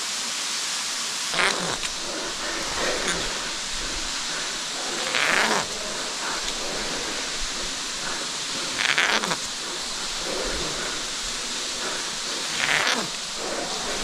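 Steady rushing hiss of the cave's underground waterfall, broken by a handful of short scrapes and rustles from a caver moving against the rock to climb the rope.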